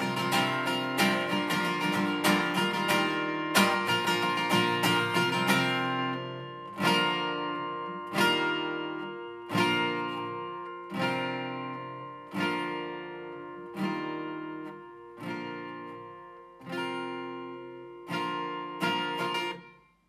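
Acoustic guitar playing a song's instrumental ending: quick steady strumming at first, then from about six seconds in, single strummed chords about every second and a half, each left to ring and fade, until the last chord is cut off at the end.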